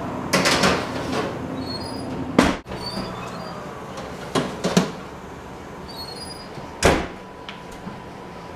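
Wall oven door opening and shutting and a metal baking sheet sliding on the oven rack: a series of clanks and knocks, the loudest about two and a half seconds in, more around four and a half and seven seconds in, over a faint steady hum.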